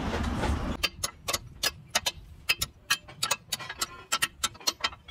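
A quick irregular run of sharp metallic taps and clicks, several a second, from steel rods striking and prying at excavator track shoes to knock out packed dirt. Steady workshop-yard noise is heard for about the first second.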